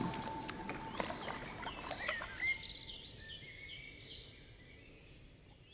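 Birds chirping, many short high calls over a faint outdoor hum, fading out steadily; the tail of the music dies away in the first second.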